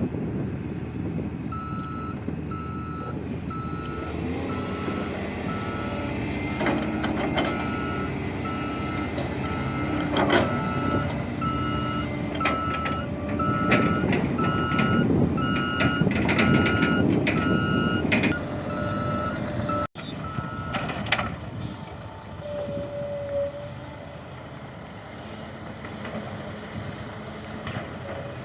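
A truck's reversing alarm beeping steadily, a little more than once a second, over a running engine, with a few sharp knocks. The beeping stops about two-thirds of the way in, and a quieter engine sound follows.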